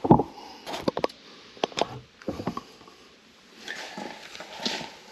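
A sharp knock as a camera is set down, then scattered clicks and rubbing as it is handled and reframed, and a run of soft scuffing steps near the end.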